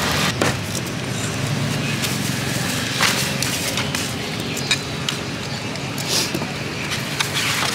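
A cleaver chopping grilled meat on a thick wooden chopping block: a handful of sharp, unevenly spaced knocks over steady background noise.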